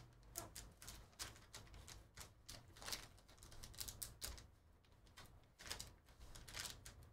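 Faint, irregular crinkling and crackling of a black plastic trading-card pack being handled and torn open by hand.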